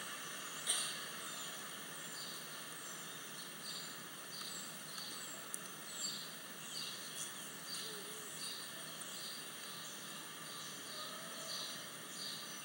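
Faint steady hiss with a short high chirp repeating about every half second, and a sharp tick about a second in.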